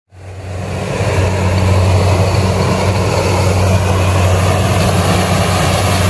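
Engine of a walk-behind corn reaper running steadily at working speed, a low hum that fades in over the first second.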